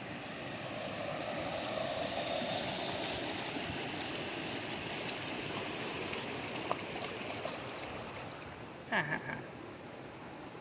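Shallow creek water running over a stony bed as a dog wades through it. About nine seconds in, a short squeal slides down in pitch, the loudest sound here, and the water sound fades a little after it.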